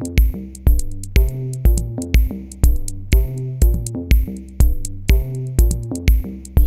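Electronic background music: a steady kick-drum beat about twice a second under synth chords and bass.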